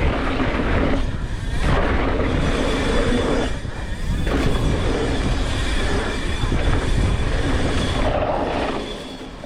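Mountain bike rolling fast down a dirt trail, heard from the rider's action camera: steady tyre roar and rattling of the bike over rough ground, with wind on the microphone and a few brief lulls.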